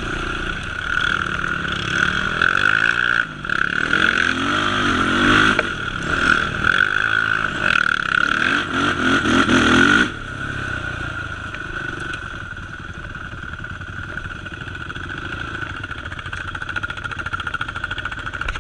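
Sport ATV's single-cylinder four-stroke engine revving up and down repeatedly as it is ridden. About ten seconds in, it drops back to a quieter, steadier running sound.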